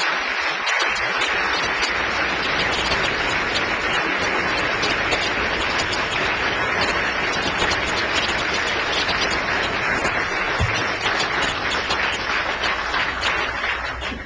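Audience applauding steadily, dying away just before the end.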